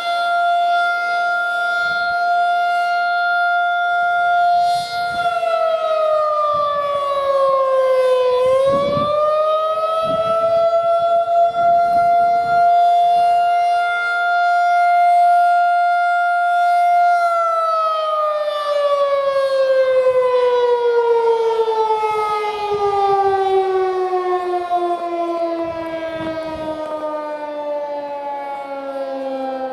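Federal Signal 2001-SRN outdoor warning siren sounding a loud held tone. The pitch dips and climbs back up, holds, then slowly winds down in pitch, the rise and fall of the wailing attack signal coming to an end.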